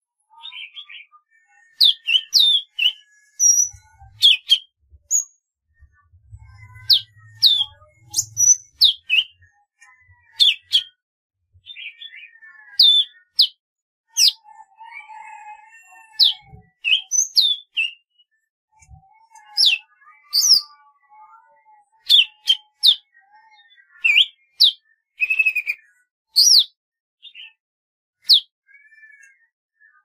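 Golden-fronted leafbird singing: a steady run of short, sharp chirps and whistled notes that vary in pitch, with a few lower warbled phrases partway through.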